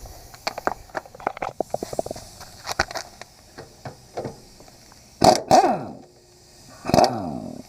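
Hammer blows on metal, persuading a pulley hub onto its shaft: a run of light taps, then three heavy ringing strikes, two close together and one near the end.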